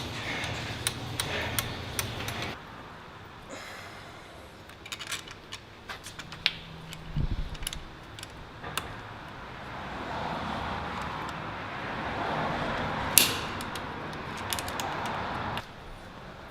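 Scattered light metal clicks and clinks of screws and a hand tool as the handlebar clamp screws are taken out, with one sharper click about thirteen seconds in, over a steady background hiss.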